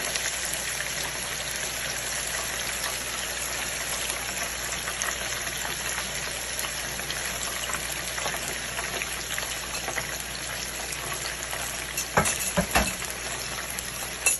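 Chicken pieces sizzling steadily in hot oil as they brown. Near the end there are a few sharp knocks close together.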